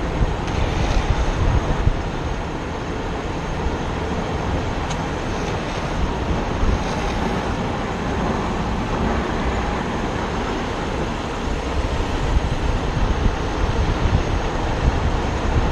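Longboard urethane wheels rolling fast on coarse asphalt, a steady rumbling road noise, with wind buffeting the microphone.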